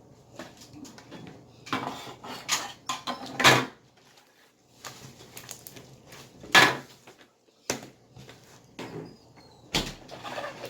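Hands working slime and handling its plastic tubs: an irregular run of clicks, knocks and squishes, loudest twice in the middle.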